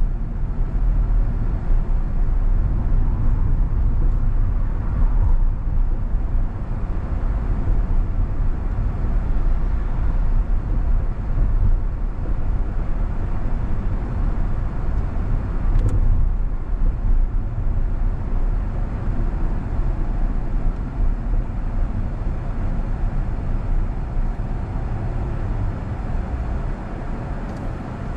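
Steady low rumble of a car's engine and tyres on the road, heard from inside the cabin, easing slightly near the end as the car slows almost to a stop.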